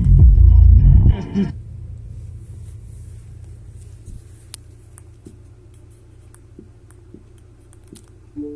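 Rap music with heavy bass played loud through a subwoofer stops abruptly about a second and a half in. A low steady rumble is left behind and slowly fades, with a few faint ticks.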